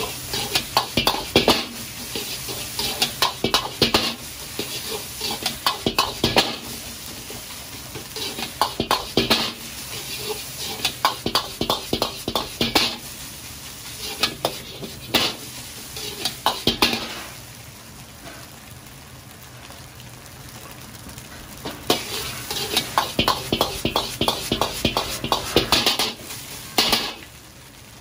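A metal wok ladle scraping and knocking against an iron wok in quick runs of strokes as fried rice is stir-fried, over the steady sizzle of the rice frying. In the last third the strokes pause for a few seconds, leaving the sizzle alone, then come in one more run and stop shortly before the end.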